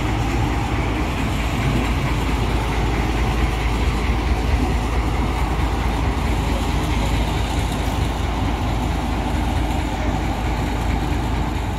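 TU2 narrow-gauge diesel-electric locomotive running steadily, a deep engine sound, as it moves slowly away along the track.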